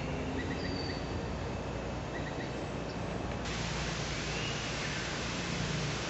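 Steady background hiss with faint small-bird calls: a few quick chirps and a thin whistle in the first second or two, and a rising-then-falling call about four to five seconds in. The hiss steps up abruptly about three and a half seconds in.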